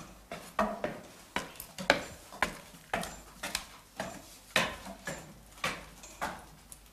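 Footsteps climbing a steep wooden ladder-stair, sharp knocks of feet on the wooden treads at about two a second.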